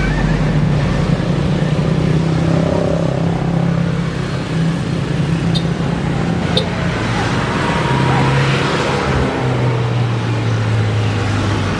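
Steady low engine drone whose pitch drops a little about nine seconds in, with two short clicks near the middle.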